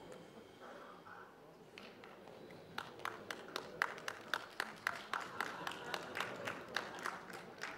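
Audience clapping: a few scattered hand claps, about four a second, beginning about three seconds in, over a faint murmur from the hall.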